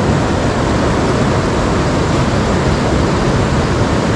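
Loud, steady rush of river current, the stream running high and cloudy after rain.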